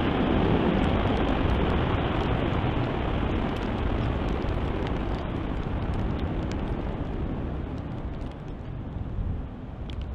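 Airbus A380's four turbofan engines at takeoff thrust, a steady rushing noise that slowly fades as the airliner climbs away, with rain mixed in.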